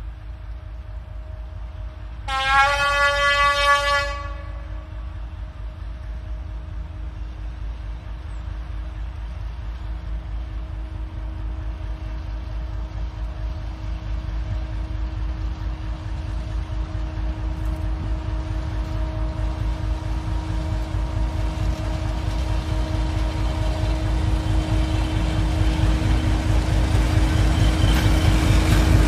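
T458 diesel locomotive sounding one horn blast of about two seconds, then its engine running with a steady drone that grows louder as it approaches hauling a train of fuel tank wagons.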